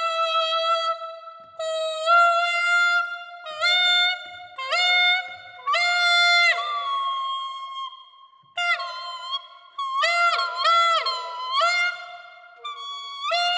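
Clarinet mouthpiece and barrel played on their own, without the rest of the instrument: a high-pitched tone held in short phrases and bent up and down in pitch, with a wavering passage about ten seconds in and a falling glide at the end.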